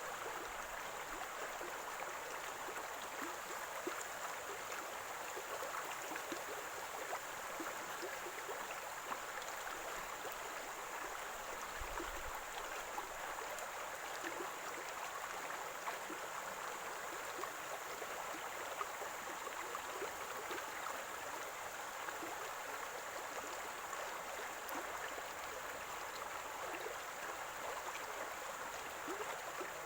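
Running stream water gurgling and trickling steadily, with many small, quick splashes and bubbles.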